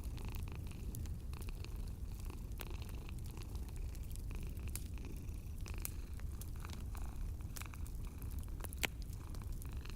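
Cat purring steadily under a wood fire crackling with scattered small pops, and one sharper pop near the end.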